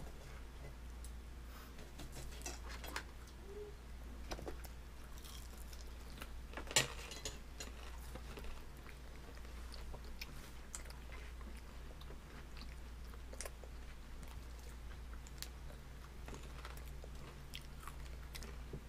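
A baby chewing and biting into a crinkle-cut chip, with faint scattered mouth clicks and one sharper click about seven seconds in. A steady low hum runs underneath.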